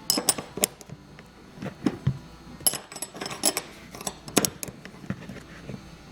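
Hand tool working the seat belt's anchor bolt into the car's floor: irregular sharp metallic clicks and clinks as the bolt is tightened.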